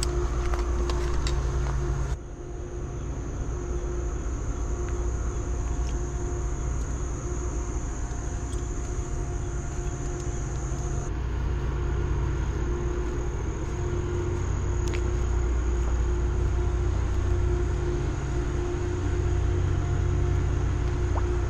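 Steady low engine rumble with a faint steady whine above it. The sound changes abruptly about two seconds in, then runs on evenly.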